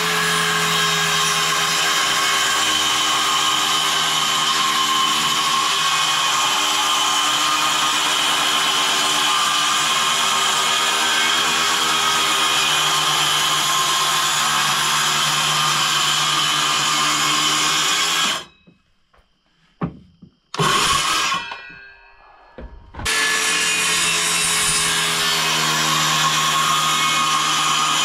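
Power saw cutting wood, running at a steady pitch. It stops abruptly about two-thirds of the way through, runs again briefly, then starts again for the last few seconds.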